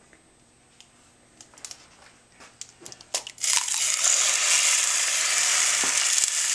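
A few faint clicks of an eggshell being cracked, then about three seconds in a raw egg drops into a hot frying pan and sizzles loudly and steadily.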